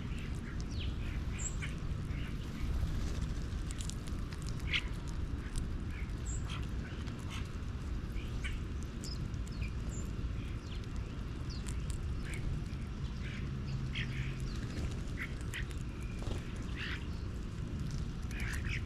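Birds calling outdoors, with many short, scattered chirps and squawks over a steady low rumble.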